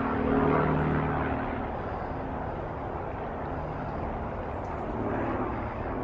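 Low steady engine drone from a distant motor vehicle or aircraft over outdoor background hiss, swelling about half a second in and then holding level.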